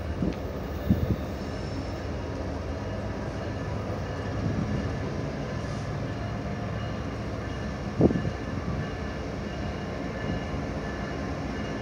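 Diesel locomotives of a freight train, an EMD SD70ACe leading with a GE ES45AC and ES40DC behind, rumbling steadily as the train approaches slowly. Short thumps come about a second in and again about eight seconds in.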